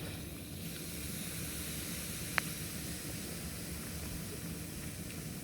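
Fizzing hiss of a toy volcano kit's citric acid and baking soda mix foaming up as water reacts with it, with one short click about halfway through.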